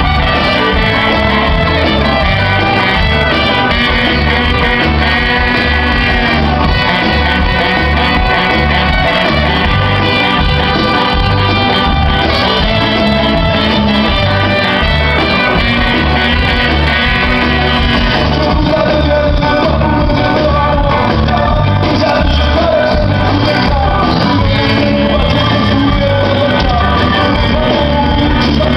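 Live ska band playing loudly: drums and bass keeping a steady beat under electric guitar and a horn section with trumpet, with the lead singer singing over it.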